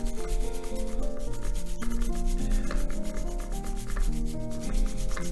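Toothbrush bristles scrubbing the grimy barrel of a camera lens with cleaning fluid, in quick back-and-forth strokes, over background music playing a stepping melody.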